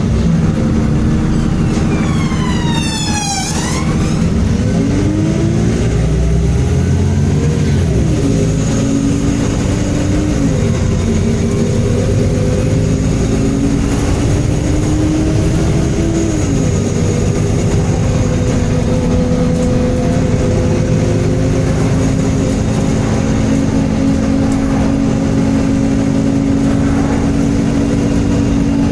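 MAN Enviro 300 bus running. A high whine rises steeply in pitch from about a second in, then the engine note climbs and drops several times before settling into a steady drone for the second half.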